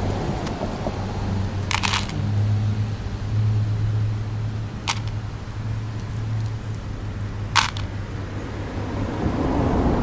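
Handling noise from a hand working right beside the microphone, shaking Reese's Pieces out of a small plastic bag onto the grass. Three sharp crinkles or clicks, about two, five and seven and a half seconds in, ride over a low steady hum.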